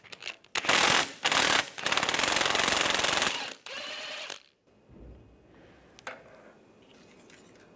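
Cordless impact wrench hammering on a 15 mm swivel socket, breaking loose a catalytic converter flange nut: two short bursts, then a steady run of about a second and a half, and a brief quieter spin just after.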